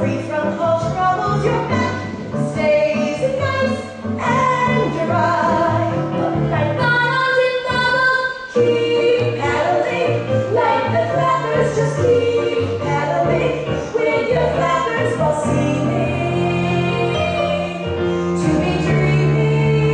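A woman singing a slow musical-theatre ballad, holding long notes over instrumental accompaniment.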